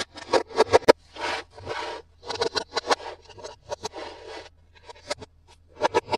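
Toy packaging being handled and unboxed by hand: short rubbing and scraping rustles broken by quick sharp clicks and taps, several a second.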